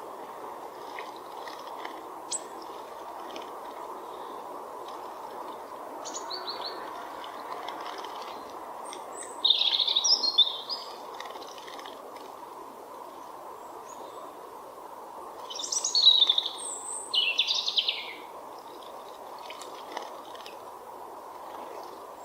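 Small songbirds chirping and twittering, loudest in two bursts about ten and sixteen seconds in, with fainter scattered calls between, over a steady rushing background noise.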